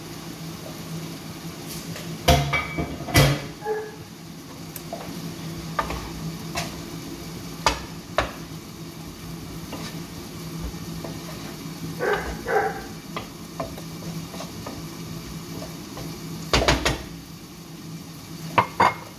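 Cooking at the stove: a wooden spatula stirring in a pan, with scattered sharp clinks and knocks of utensils and lids against the cookware, over a steady low hum.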